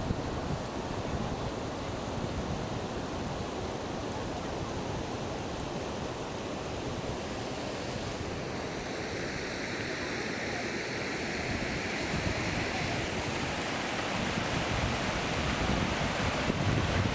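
Steady rushing of waterfall water, with wind buffeting the microphone in low gusts. A higher hiss swells from about halfway through.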